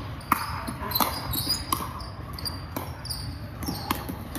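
Plastic pickleball struck back and forth by paddles in a rally: a series of sharp pops, roughly one every half second to a second, ringing in a large gym. Short high squeaks from sneakers on the wooden court fall between the hits.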